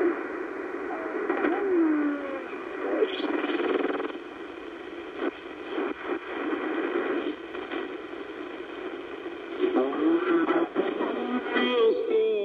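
Shortwave AM broadcast audio from a Yaesu FRG-100 communications receiver: an Arabic-language voice from the Voice of the Islamic Republic of Iran on 9880 kHz. It gives way to quieter static as the dial is tuned up the 31-metre band, and another station's signal comes in about ten seconds in.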